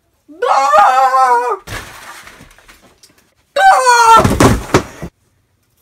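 A girl's voice letting out a loud, high, slightly wavering roar in imitation of a T. rex, followed by a little scuffling and knocking. About three and a half seconds in comes a second shrill cry, then a quick burst of thumps and knocks.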